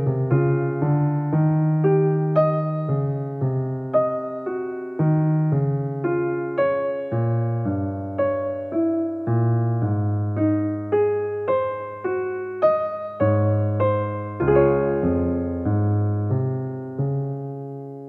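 Background piano music: a slow melody of single notes over low bass notes, ending on a held chord that dies away near the end.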